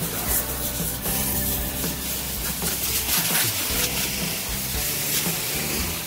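Background music over the hiss and rubbing of a car-wash vacuum hose cleaning a car's interior.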